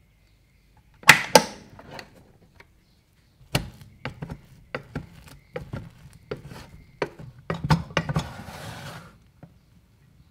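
Rice cooker lid released with two sharp clicks about a second in, then a plastic rice paddle tapping and scraping in the inner pot as cooked rice is stirred, with a stretch of wet rice-mixing rustle near the end.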